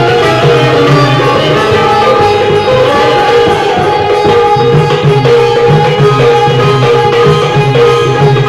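Live Indian folk music: a dholki drum keeps a steady rhythm while an Indian banjo (benjo) plays a repeating melody over it.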